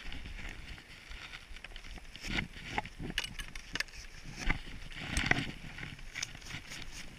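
Skis scraping over packed snow at a slow glide, with irregular knocks and rustles as gloved hands and ski-pole straps move right against the camera.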